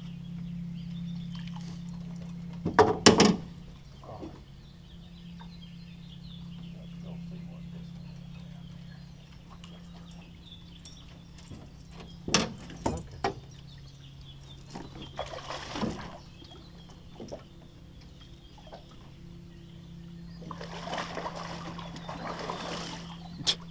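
A trotline being hauled in by hand from an aluminium johnboat: scattered knocks against the hull, a few of them loud, and a stretch of splashing water near the end as a catfish on the line comes to the surface. A steady low hum runs underneath.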